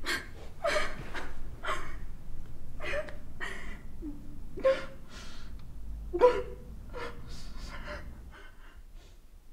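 A young woman crying hard, with ragged gasping breaths and short catches of voice coming every half second to a second. The crying is loudest past the middle and dies down near the end.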